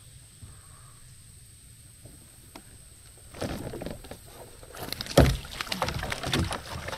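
Knocks and clatter against a plastic Hobie fishing kayak and its fishing gear, starting about three and a half seconds in, while a hooked bass is being fought. A sharp thump about five seconds in is the loudest.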